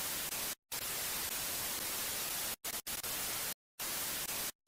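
TV static hiss, even and steady, that cuts out abruptly for a split second about five times.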